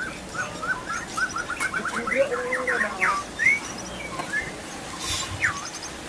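White-rumped shama (murai batu) song: a quick run of short chirping notes over the first three seconds, then a few separate whistled notes that slide in pitch.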